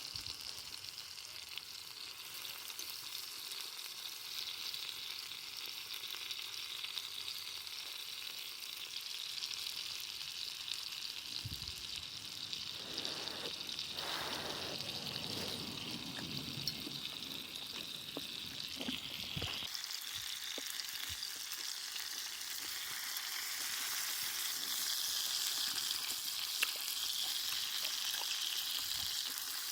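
Pork slices sizzling over a wood fire: a steady hiss of frying fat with scattered crackles, and a duller rushing sound for several seconds about midway.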